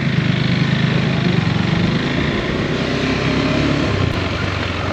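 Motorcycle engine running steadily while the bike is ridden, with a constant rush of wind and road noise over it.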